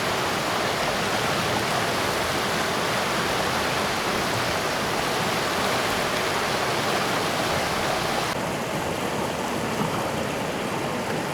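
Fast-flowing mountain river rushing and churning over rocks, a steady loud rush; about eight seconds in the higher hiss suddenly drops a little.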